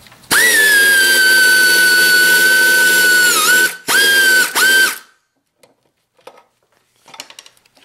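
Pneumatic air ratchet running a connecting-rod bolt out of a Briggs & Stratton Intek engine: a loud, steady whine for about three seconds, its pitch dipping briefly as the tool loads, then two short bursts on the trigger, followed by a few faint clicks.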